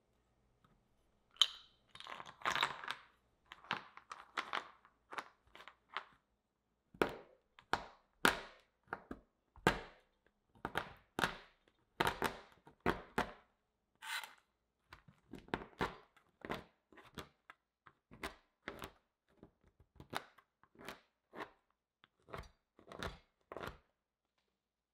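A chef's knife chopping a block of dark couverture chocolate on a cutting board: repeated sharp chops, about one or two a second with a short pause about six seconds in, each one a knock of blade on board with a crunch of breaking chocolate.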